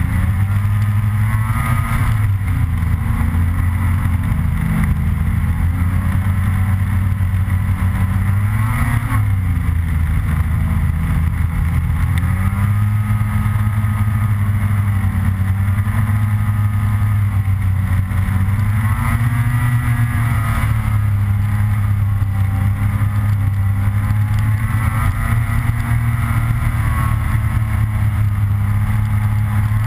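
Snowmobile engine running at trail speed, its pitch rising and falling several times as the throttle is opened and eased.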